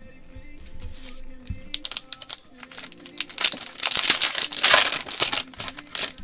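A trading card pack's foil wrapper is torn open and crinkled by hand, loudest from about three to five and a half seconds in, over steady background music.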